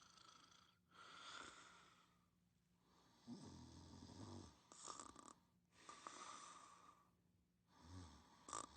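Faint, slow breathing of a sleeper, each breath a soft hiss. A low, buzzing snore comes on a breath about three seconds in and again near the end.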